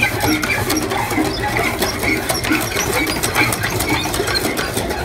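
Several cast-iron hand pitcher pumps being pumped fast, the handles clicking and clanking rapidly as water gushes and splashes into the troughs.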